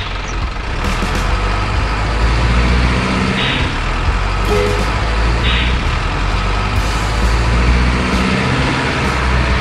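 Heavy diesel truck engine sound running with a steady low rumble, broken by two short hisses about three and a half and five and a half seconds in.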